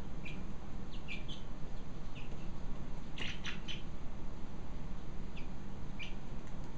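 Young chickens peeping in short, scattered chirps, with a quick cluster of several about three seconds in, over a steady low hum.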